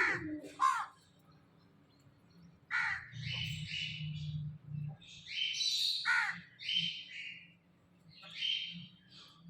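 Crows cawing: harsh calls repeated in several bouts, some dropping in pitch.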